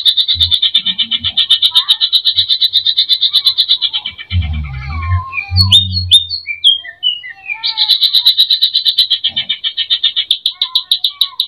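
Greater green leafbird (cucak ijo) singing in full voice, its song full of mimicked calls: a fast rattling trill of about nine notes a second, broken about four seconds in by a run of varied whistles and chips, after which the trill starts again. A few low thumps fall during the break.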